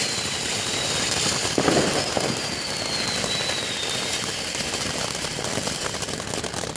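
Ten Jorge firework fountains burning together, giving a steady, loud hissing spray with scattered crackles. A thin whistle near the top slowly slides down in pitch twice. The sound fades as the fountains burn out near the end.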